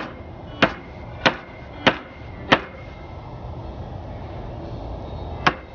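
Hammer blows on a wooden 2x4 fence panel frame, knocking it into level. Five sharp, even strikes about two-thirds of a second apart, then a pause and one more strike near the end.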